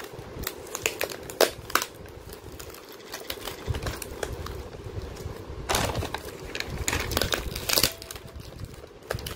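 Cling film crinkling and a plastic takeaway container clicking as they are handled to unwrap the container, in irregular crackles with louder rustles about six and eight seconds in.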